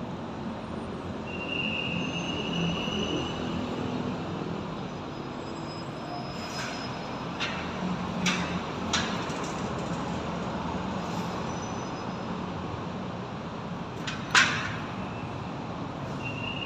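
Steady background rumble with a high, thin squeal about a second in and again at the very end, and a few sharp clicks around the middle, the loudest about fourteen seconds in.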